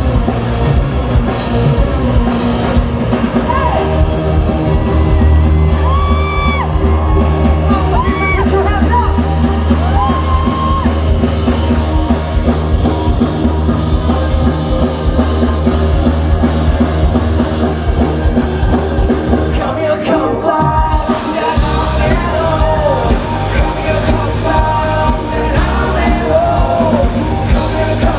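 Live rock band playing, with a lead vocal singing over a drum kit and bass; about twenty seconds in the drums and bass briefly drop out before the full band comes back in.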